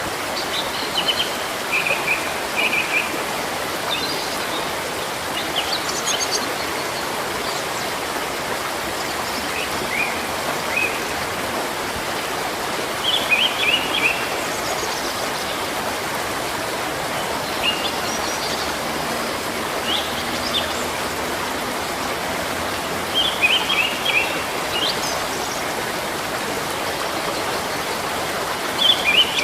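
Steady rush of a flowing stream, with small birds chirping in short high phrases every few seconds over it.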